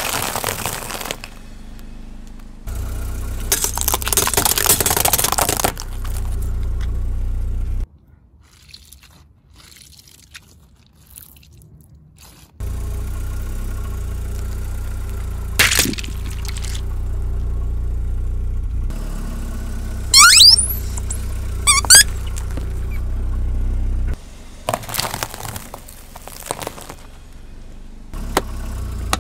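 Car tyre slowly rolling over a packet of round crackers and crunching them, over the low hum of the car's engine. About two-thirds of the way in, a small yellow rubber toy squeezed under the tyre gives two short rising squeaks, and more crunching follows near the end.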